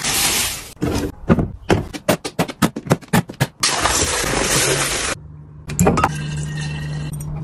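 A run of about ten sharp plastic clicks and snaps from a folding plastic rack, then foam packaging rustling and scraping as a boxed kettle is unpacked. After a brief pause and a single knock, liquid pours into a glass decanter with a steady hiss over a low hum.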